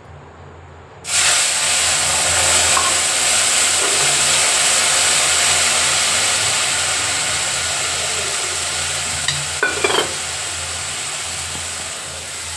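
Liquid poured from a small steel bowl into a hot pan sizzles. The sizzle starts suddenly about a second in and slowly dies down, with a few light metal clinks about ten seconds in.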